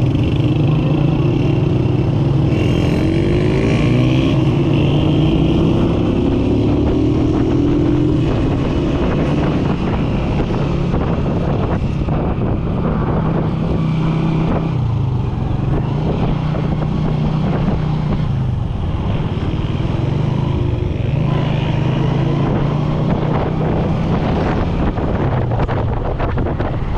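A small commuter motorcycle's single-cylinder engine running steadily at cruising speed, with wind rushing over the microphone. In the first several seconds an engine note rises and falls in pitch.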